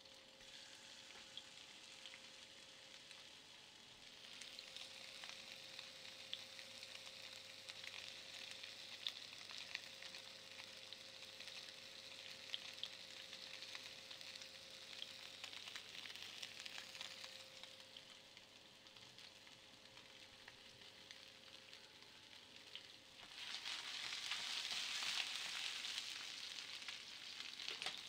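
A faint, steady crackling hiss like food sizzling, over a faint steady hum. The hiss grows louder for the last few seconds.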